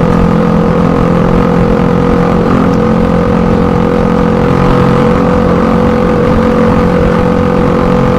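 Exhaust of a Suzuki Satria FU 150's 150 cc single-cylinder four-stroke engine, running loud at a steady, held engine speed.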